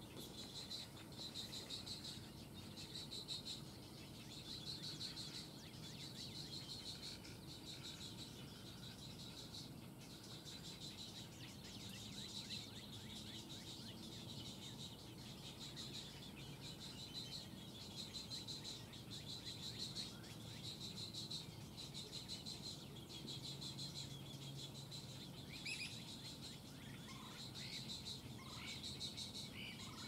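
Faint outdoor chorus of animal calls: high trills repeating about once a second, with a few short rising bird chirps near the end.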